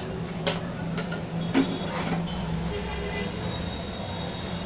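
A steady low mechanical hum, with a few sharp clicks in the first two seconds.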